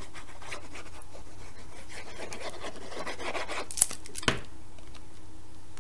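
Applicator tip of a liquid-glue bottle rubbing and scratching along the edges of a cardstock layer, followed by two sharp clicks about half a second apart as the layer is handled.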